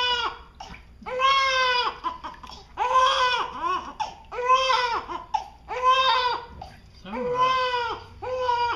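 One-week-old newborn crying in a run of short high-pitched wails, roughly one a second, upset at his first bath.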